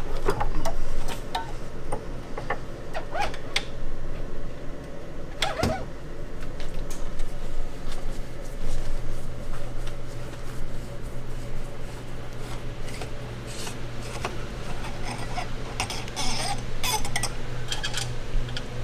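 Metal motorcycle fork parts and tools clinking, knocking and scraping as a Showa fork is worked on in a vise and its internals are drawn out. A low steady hum comes in about halfway through.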